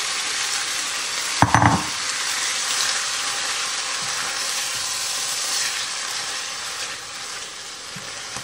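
Cubed chicken and honey-soy sauce sizzling in a hot skillet as it is stirred, a steady frying hiss, with a brief loud clatter against the pan about a second and a half in.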